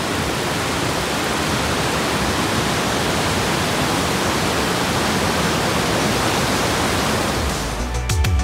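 Mountain stream rushing over rocks: a steady, loud wash of water noise. Music comes back in near the end.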